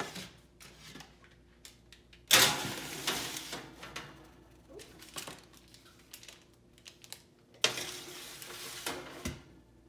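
Two metal baking sheets slid one after the other onto the wire racks of an oven, each a loud scrape of metal on metal lasting about a second: the first about two seconds in, the second near the end. Light clinks of the pans being handled come between them.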